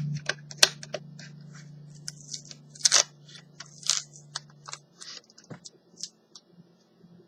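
Hands handling a laptop hard drive and its plastic cover: a run of small clicks, taps and rustles. A low steady hum runs underneath and stops about five seconds in.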